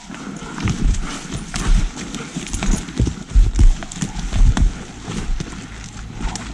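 Footsteps tramping through forest undergrowth and dry fallen branches: irregular heavy footfalls with twigs cracking and brushwood rustling.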